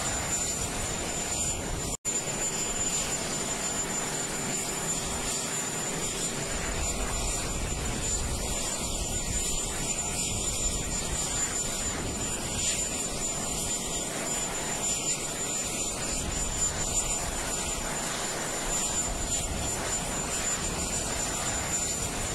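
Steady jet aircraft engine noise with a thin high whine over it, and an uneven low rumble of strong wind on the microphone. The sound cuts out for an instant once, about two seconds in.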